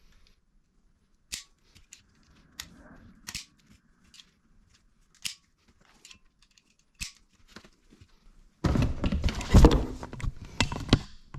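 A blade cutting through an old rubber handlebar grip: scattered small snips and clicks. About three-quarters of the way in, a sudden, much louder stretch of rustling and handling noise takes over.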